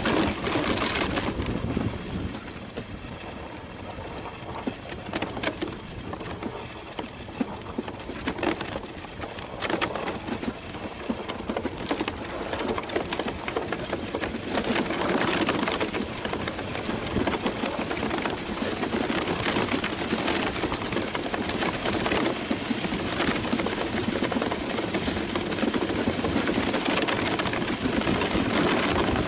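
DN iceboat's steel runners scraping over the ice while it sails, heard through the boat-mounted camera as a steady crackling hiss with many small clicks and knocks. It is quieter for several seconds after the first second, then grows louder and stays so.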